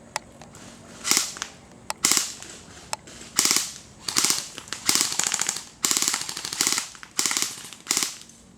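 Airsoft guns firing on full auto: about nine short bursts of rapid clicking shots, with a few single shots between them.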